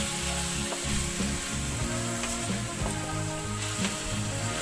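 Minced garlic and onion sizzling in hot oil in an aluminium wok, stirred and scraped around the pan with a wooden spatula, with a few short scrapes over the steady sizzle.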